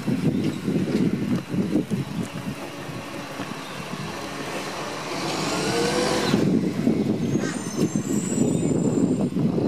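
Garbage truck running down the street, with uneven low rumble and buffeting on the microphone. About five seconds in, a hiss from the truck swells for just over a second and cuts off suddenly, like an air brake letting go.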